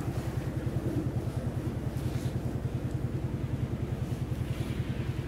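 A steady low mechanical drone that pulses about a dozen times a second, like a motor running evenly.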